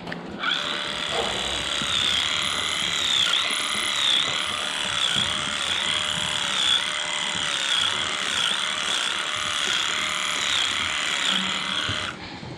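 Electric livestock clipper switching on and running steadily while it trims the hair of a cow's tail switch, its pitch dipping briefly again and again as the blades cut through the hair; it switches off just before the end.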